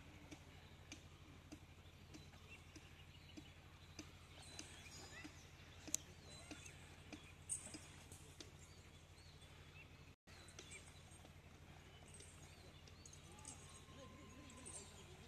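Near silence: faint outdoor ambience with a steady low hum and scattered soft clicks, cut by a brief dropout about two-thirds of the way through.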